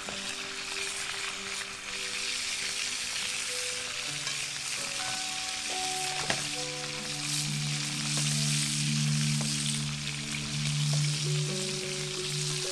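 Fish fillets frying in shallow oil in a cast-iron pan, a steady sizzle, with a spoon clinking against the pan about six seconds in. Soft background music with held notes plays underneath.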